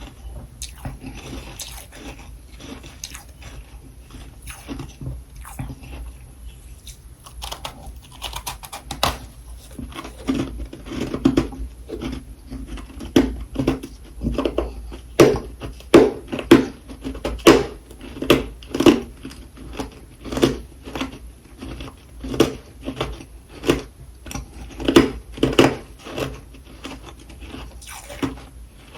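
Close-up chewing: a run of crunching bites, quieter at first, then louder and regular at about one to two a second from roughly ten seconds in.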